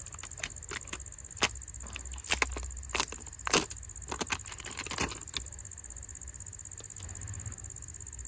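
Thin clear plastic protective film crinkling and crackling as it is peeled off a new smartphone by hand: a run of sharp crackles over the first five seconds or so, then only a few faint ones.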